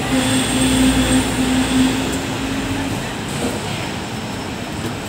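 Hong Kong double-decker electric tram running along the street: a steady rumble with a humming tone over it that stops about three seconds in.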